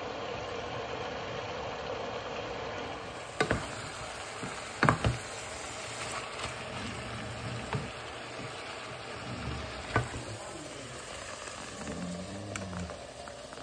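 Minced-meat bolognese sauce sizzling in a steel pot while it is stirred with a wooden spoon, with a few sharp knocks of the spoon against the pot.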